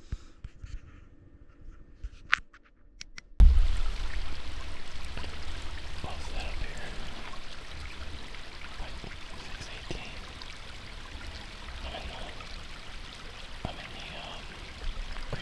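Faint clicks for the first few seconds, then a steady rush of running creek water starting abruptly about three seconds in, with a low rumble underneath.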